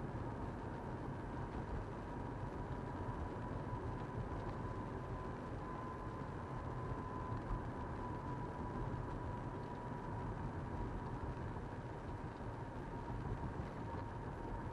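Steady low noise of a vehicle in motion, with a thin steady tone sitting above it.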